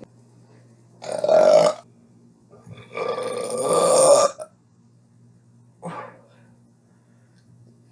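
A person burping twice, loudly: a short burp about a second in, then a longer one of about a second and a half that grows louder before it stops.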